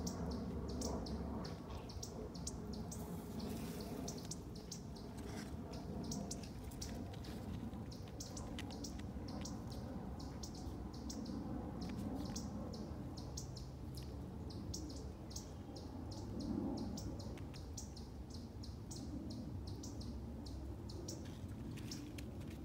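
Small birds chirping in the background: many short, high chirps, repeated irregularly, over a steady low rumble.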